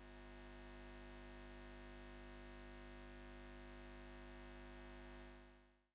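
Faint, steady electrical hum with hiss over it. It fades in at the start and fades out near the end.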